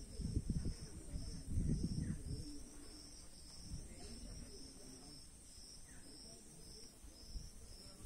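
Insects chirping in a steady pulsing rhythm, about two to three chirps a second, over a constant high buzz. There are low thumps and rumbles in the first two seconds or so.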